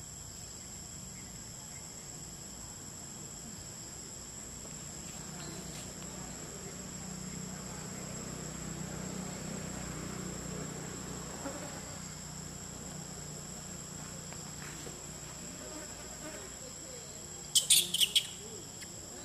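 Steady high-pitched insect chorus. A faint low hum swells and fades in the middle, and a quick run of four or five sharp high clicks near the end is the loudest sound.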